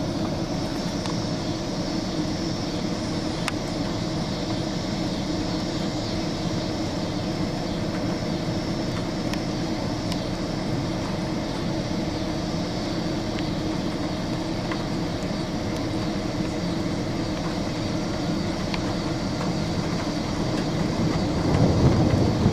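Steady background noise with a faint constant hum, then a low rumble of thunder that builds in the last second or so.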